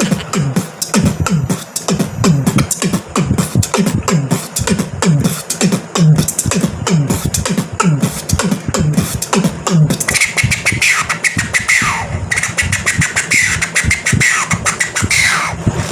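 A beatboxer's mouth-made beat: a fast, dense run of clicks and snares over low pitched bass pulses. About ten seconds in, a high whistle-like tone joins the beat, with a few quick downward glides.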